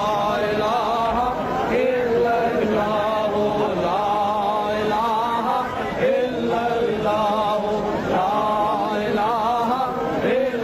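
A man's voice chanting in a slow, wavering melody, with a short break between phrases about every two seconds.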